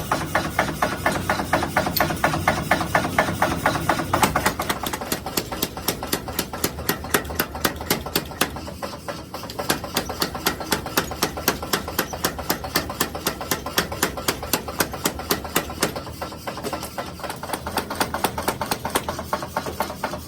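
Mechanical power hammer striking hot steel in rapid, even blows while blacksmith tong stock is forged.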